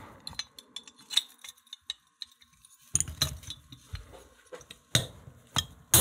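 Small metallic clicks and clinks as a steel pin punch and tools are handled against a steel bike lock, with two sharper metal knocks about five and six seconds in.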